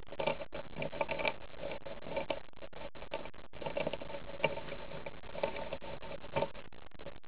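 A marker scratching across paper in quick, irregular short strokes as a drawing is coloured in.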